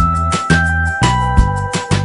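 Background music with a steady beat, about two drum hits a second, over held notes.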